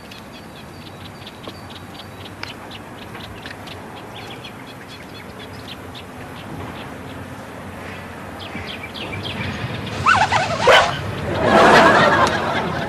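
Birds chirping in short repeated notes over a steady outdoor background. Near the end come two loud, short bursts of a voice.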